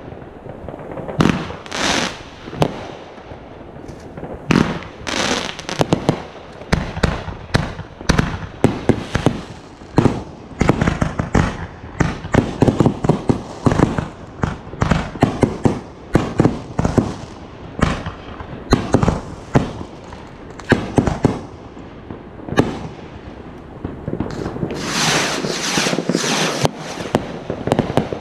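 Aerial fireworks going off in quick succession: many sharp bangs, densest through the middle, with a stretch of steady hiss near the end.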